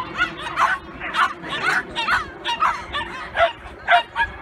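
Dog barking in a rapid run of short, high yips, about three a second, while it runs an agility course.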